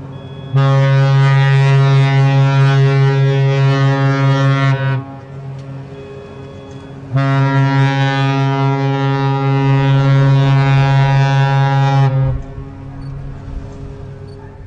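Cruise ship's horn sounding two long, low-pitched blasts of about five seconds each, a couple of seconds apart.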